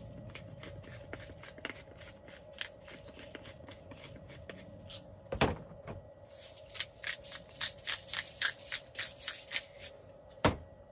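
Spice shakers and a pepper grinder being worked by hand: soft clicks and taps, then a quick run of shaking rattles, about four or five a second, in the second half. Two sharp knocks come about halfway and near the end. A faint steady hum runs underneath.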